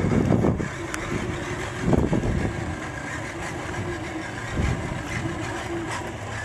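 Redcat Gen 8 RC crawler's electric motor and gearbox whining steadily as the truck drives along a gravel path, with a few low rumbling buffets over it, near the start, about two seconds in and near the end.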